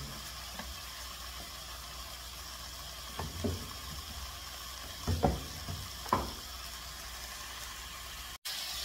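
Boiled chicken pieces and their fat sizzling in a pan on a gas burner, a steady hiss as frying gets under way, with three short knocks about three, five and six seconds in.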